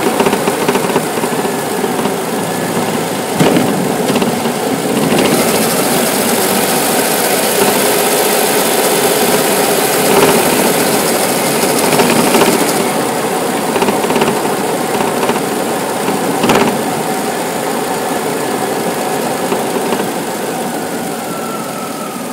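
1998 Lexus ES300 running, a dense steady mechanical noise with a few sharp knocks, one about three and a half seconds in and one past sixteen seconds. A hiss joins from about five seconds in to about thirteen.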